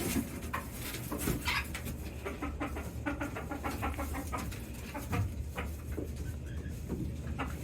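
Chickens clucking, with scattered clicks and knocks.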